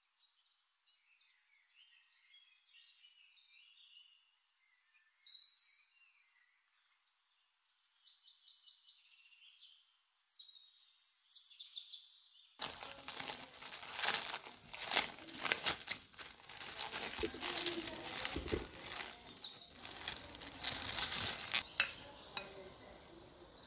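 Faint high bird chirps, then, about halfway through, plastic cling film crinkling and crackling loudly as it is stretched and pressed over a glass bowl.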